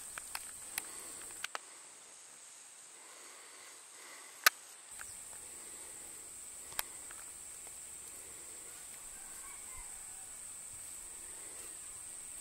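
Steady high-pitched drone of insects in the field, with a few sharp clicks, the loudest about four and a half seconds in.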